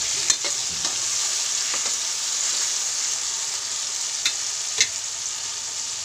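Onion-tomato tadka sizzling steadily in hot oil in a metal kadhai while it fries until the tomatoes break down. A few sharp clicks of a steel ladle stirring against the pan come near the start and again about four and five seconds in.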